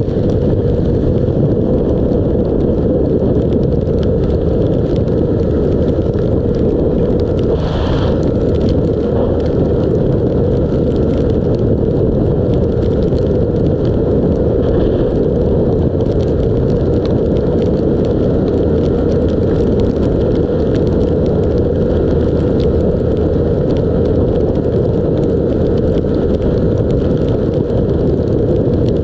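Steady rush of wind and wet-road noise from a 125cc Honda motorcycle cruising at speed in heavy rain, with its engine running underneath. There is a brief louder swell about eight seconds in.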